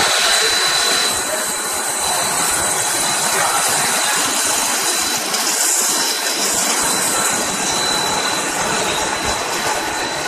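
Twin-screw snack-food extrusion line running: a steady, loud machine noise with a thin high whine over it.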